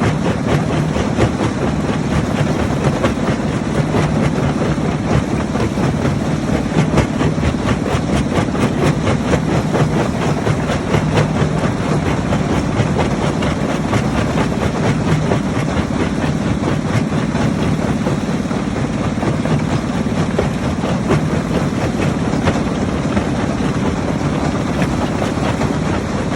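Rock crusher running steadily: a heavy engine hum under a constant, dense rattle of stone being crushed.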